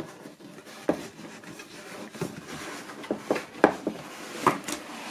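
Hands working open the front flap of a large white cardboard box: cardboard rubbing and scraping, with a handful of sharp taps and knocks, the loudest about three and a half seconds in.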